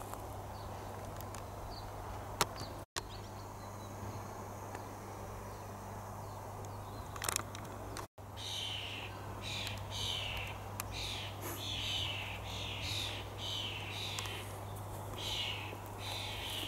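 Outdoor garden ambience with a steady low hum and a couple of sharp handling clicks. About halfway through, short, slightly falling chirps start up and repeat about one and a half times a second.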